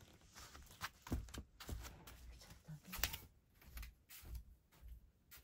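Irregular light clicks and taps, about three a second, some slightly louder than others.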